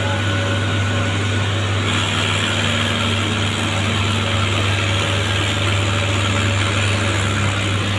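Mahindra 555 DI tractor's diesel engine running steadily under load as it tries to pull an overloaded sugarcane trailer, a constant low hum with no revving; a higher hiss joins about two seconds in.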